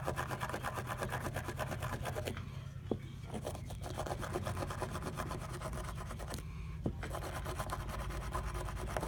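Brass-bristle bore brush scrubbed rapidly back and forth against a steel AR-15 bolt, a dense scratchy rasping that breaks off briefly twice, as caked carbon is scrubbed off.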